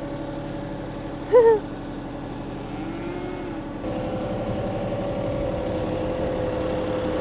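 Tractor engine running steadily, then opened up a little about four seconds in, its note louder and shifting slightly. About a second and a half in, a short high call sounds briefly over the engine.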